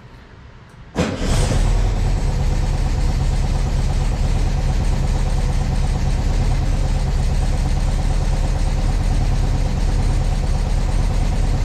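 A 1971 VW Super Beetle's air-cooled flat-four engine starts about a second in, catching almost at once, then runs steadily.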